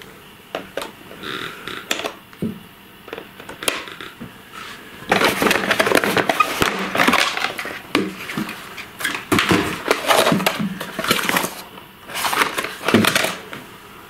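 Side cutters snipping the plastic ties that hold a boxed RC car in its cardboard tray: a few sharp clicks. Then, about five seconds in, a long stretch of crackling and rustling as the car is pulled free of the box.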